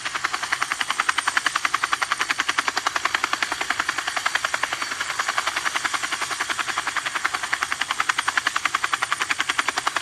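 Battery-powered toy helicopter running with its rotor spinning, making a fast, even chopping rattle of about ten beats a second.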